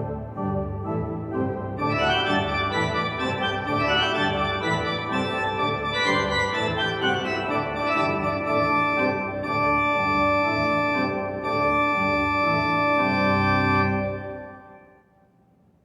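Holtkamp pipe organ playing sustained chords, growing fuller and brighter about two seconds in. Near the end the final chord is released and dies away in the church's reverberation.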